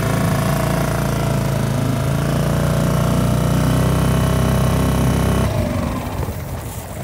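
Small Mercury outboard motor running steadily under way, pushing an inflatable PVC boat. About five and a half seconds in, the sound cuts to a quieter, more distant engine.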